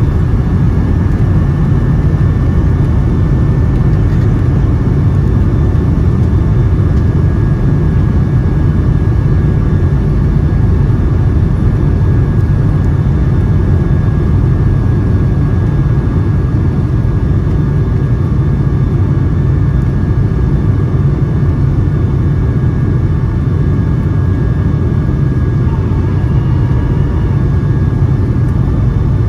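Steady cabin noise aboard a Boeing 757-200 airliner: a low, even rumble of engines and airflow with a thin, constant high whine, unchanging throughout.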